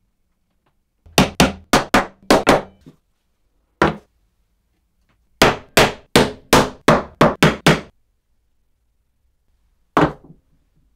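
Small hammer tapping tiny nails into thin wooden strips in a wooden frame: a quick run of about seven sharp strikes, a single strike, then a run of about nine, roughly four a second. One more knock comes near the end.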